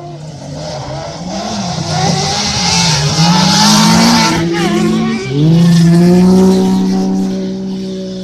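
4x4 1600 cc autocross prototype buggies racing past at full throttle on a dirt track, their engines revving, the pitch rising and falling through gear changes. They are loudest a few seconds in, with a brief drop near the middle, then settle to a steadier note that fades as the cars pull away.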